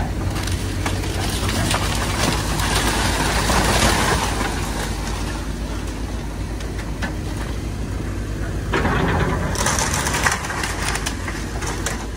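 Link-Belt 210X excavator's diesel engine running steadily while its bucket tears into a wood-frame house, with boards and debris cracking and crashing down. The breaking is heaviest in the first few seconds and comes again in a sharp spell of crackling about nine seconds in.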